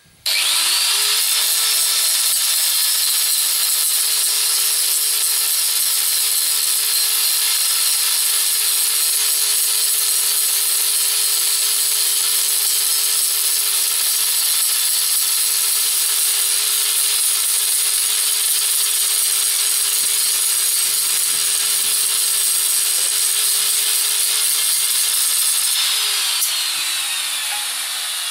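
Electric angle grinder with a cut-off disc cutting a steel tube, showering sparks. The motor spins up at the start, runs at one steady pitch under a harsh grinding hiss, then is switched off near the end and winds down with a falling pitch.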